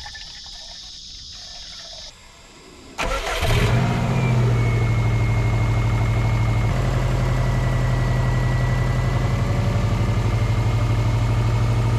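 A Subaru WRX's turbocharged flat-four engine is started about three seconds in. It catches with a brief rise in revs, then settles into a steady idle with a faint thin whine above it.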